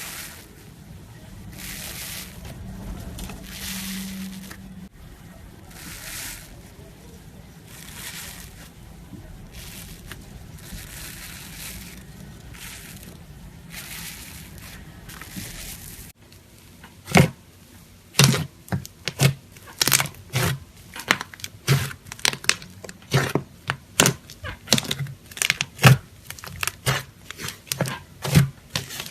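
Slime being squeezed and stretched by hand, first with soft crinkling, crackling swells every second or two. After a sudden change about halfway through, it gives a quick, irregular run of sharp pops and clicks.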